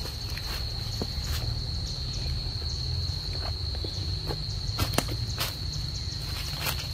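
A steady, high-pitched insect drone, like crickets or cicadas, over a low rumble, with scattered light clicks and rustles of dry leaf litter underfoot and one sharper click about five seconds in.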